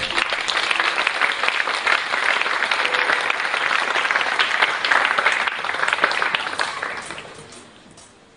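Audience applauding, a dense steady patter of many hands clapping that dies away near the end.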